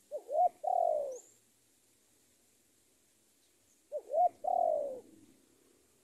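Spotted dove cooing twice, about four seconds apart. Each call is two short rising-and-falling notes and then a longer falling coo: the decoy dove's call that draws a rival.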